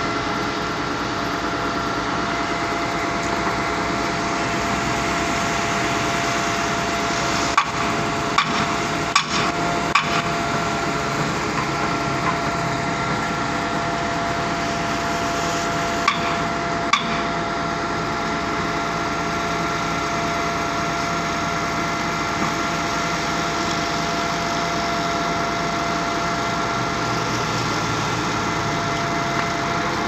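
Truck-mounted concrete boom pump running, a steady engine and hydraulic drone with a high whine, as it sucks the cleaning sponge back through its pipeline. A few sharp knocks come about a quarter of the way in and again just past the halfway mark.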